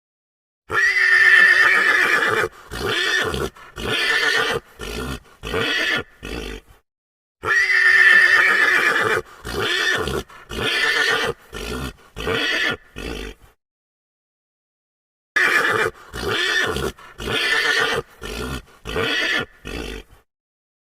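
Horse neighing. A long whinny is followed by a run of shorter whinnies, and the whole sequence comes three times with short silent gaps between.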